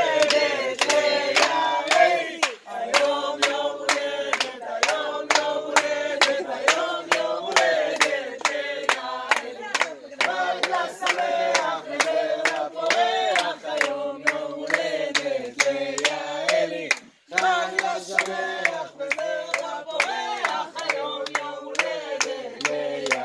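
A group of people singing a song together while clapping along in a steady beat, about two claps a second, with a brief pause about three-quarters of the way through.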